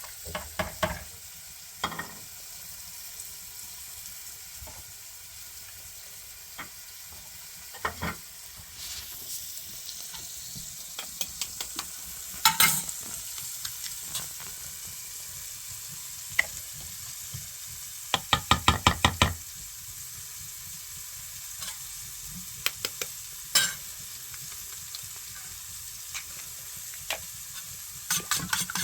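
Food sizzling in a frying pan, with a utensil stirring and knocking against the pan now and then, including a quick run of about ten taps about two-thirds of the way through.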